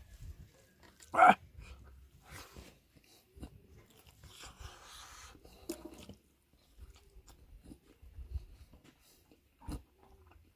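A person chewing food with wet smacking and crunching mouth sounds, with one sharp, much louder smack about a second in.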